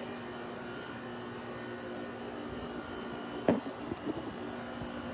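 Haier 5,200 BTU air conditioner running: a steady hum with a held tone. A single sharp knock about three and a half seconds in, and a couple of lighter ones just after.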